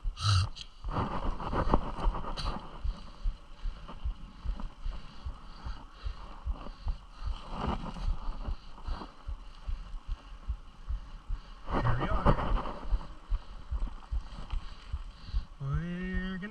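Bumpy fast ride over rough ground: a steady rumble with irregular low thumps and occasional louder rattling jolts, and wind on the microphone. A short voiced call near the end.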